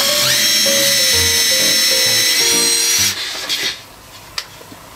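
Cordless Makita impact driver with a drill bit boring a 4 mm pilot hole into a softwood leg. Its motor whine rises as it spins up, runs steadily for about three seconds, then stops suddenly.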